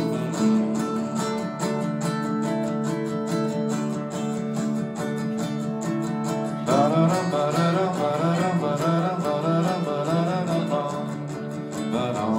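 Steel-string acoustic guitar strummed in a steady pattern, with a wordless vocal melody joining over it about halfway through.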